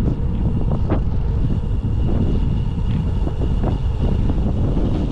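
Wind buffeting the microphone over the rumble of a bicycle rolling along the road, with a few short clicks and rattles.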